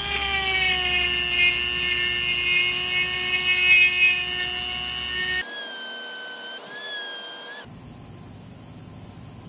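Dremel rotary tool running at a steady whine, its polishing bit grinding against a metal file with a scraping hiss to reduce the bit's outer diameter. About five and a half seconds in the whine jumps higher for a couple of seconds, then the tool stops.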